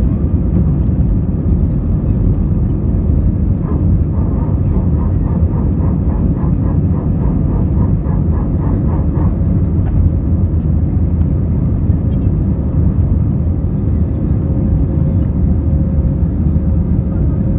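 Steady, loud low rumble in the cabin of an Airbus A320 with its engines running, with a faint thin tone coming in near the end.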